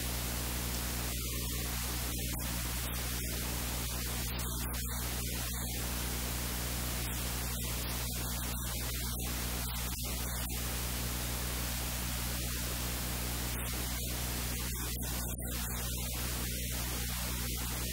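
Steady hiss with a low, constant hum underneath: static from the recording itself, with no speech.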